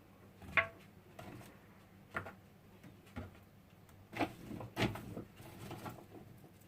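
A few short knocks and clatters of kitchenware being handled. The loudest comes about half a second in with a brief ring, and lighter ones follow a few seconds later.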